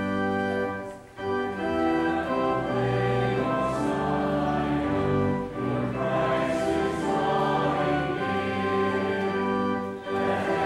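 Organ accompanying choir singing, in held chords with short breaks between phrases about a second in, midway and near the end.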